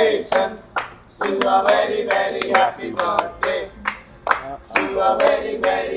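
Group of people singing a birthday song with steady rhythmic clapping, about two claps a second.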